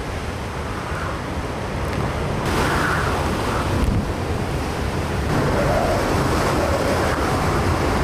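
Typhoon-force wind blowing in heavy gusts, with strong wind noise buffeting the microphone. The hiss turns brighter abruptly about two and a half seconds in.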